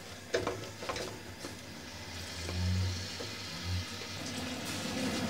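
Sliced onions being pushed off a cutting board into hot oil in an aluminium pan: a few light taps and scrapes, a brief low hum about halfway, then a faint sizzle building near the end as the onions begin to fry.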